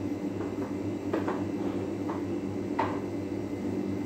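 A steady low hum with four light, sharp knocks and clicks from handling tobacco leaves and utensils at a kitchen sink.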